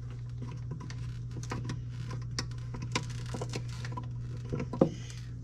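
Refrigerator compressor running with a steady low hum, started on its new start relay and overload protector and staying on rather than cutting out. Scattered light clicks and ticks sound over it.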